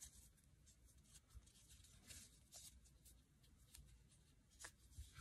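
Faint, scattered soft ticks and rustles of a metal crochet hook catching and pulling thick T-shirt yarn through stitches, over a near-silent room.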